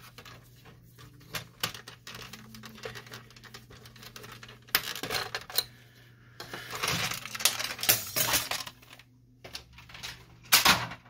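Hard plastic and sheet-metal parts of a Samsung CLP-365W laser printer clicking and clattering as they are handled and the top cover is lifted off the metal chassis, with the loudest knock near the end.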